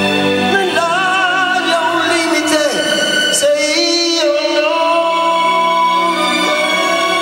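A man singing high, long-held notes with vibrato into a microphone over an instrumental backing, in a live performance of an Italian pop ballad.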